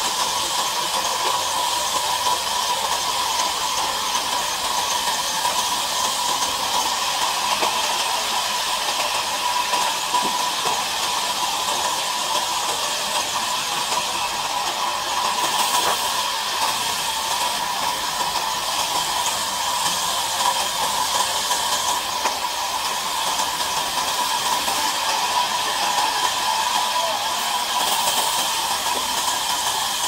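Large sawmill band saw running steadily, its blade cutting through timber: an even hiss with a steady whine.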